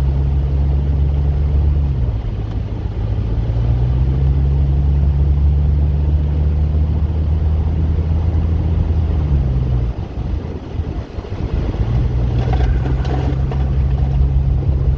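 Inside the cabin of a W123 Mercedes-Benz 300D, its five-cylinder turbo diesel drones steadily at speed over the road noise of tyres running through snow and slush. The engine drone drops away about ten seconds in and comes back about two seconds later.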